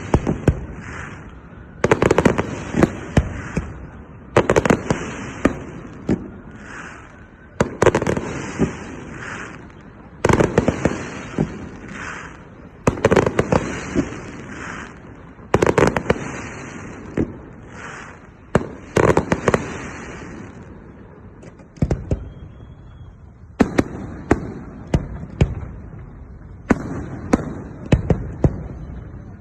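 Fireworks going off in volleys: clusters of sharp bangs and pops every two to three seconds, each trailing off into a rumbling haze, with a brief lull about three-quarters of the way through.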